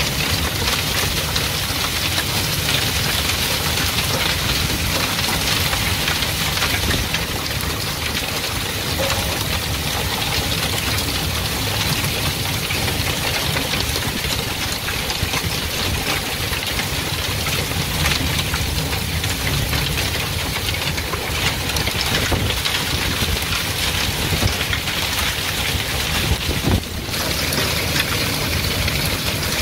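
Hail and heavy rain pelting a porch and its railing, with runoff pouring off the roof edge: a loud, steady, dense patter over a low rumble. The sound dips briefly near the end.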